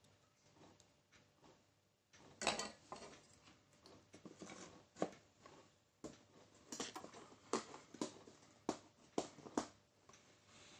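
Handling noise from an LED bulb's plastic housing and metal parts being picked up and fitted together: a string of light clicks and knocks with rustling between them, starting about two seconds in.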